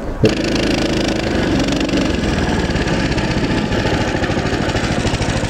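Small engine of a motorized snow tow (snow dog) running steadily as the machine travels along a snowy track, with an even, rapid firing rhythm.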